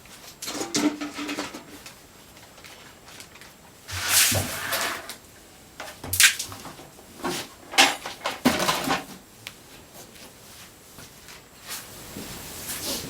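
Irregular scrapes, knocks and clatter of work on a concrete floor, in several short bursts, with a steadier rushing noise near the end.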